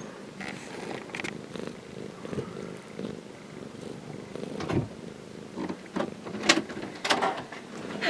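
Domestic cat purring steadily, with a few short clicks over it about halfway through and near the end.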